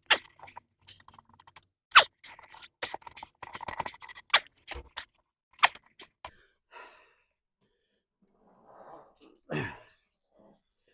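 Steel bar of a manual mini tire changer scraping and clacking against a golf cart wheel rim and tire bead as the bead is forced over the rim, a run of sharp scrapes and knocks. Near the end the work pauses for heavy breaths and a short strained grunt.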